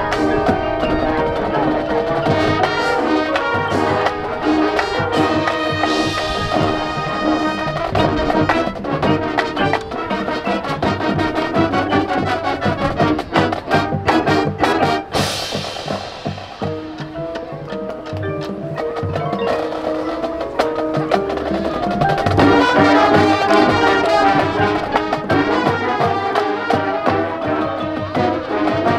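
High school marching band playing: brass with drumline percussion. There is a sharp crash about halfway through, and the band gets louder for the last several seconds.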